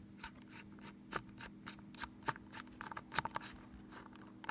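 Light, irregular clicks and scratches of small parts being handled: a hard disk and its metal holder being worked loose and its screws removed. A faint steady hum sits underneath.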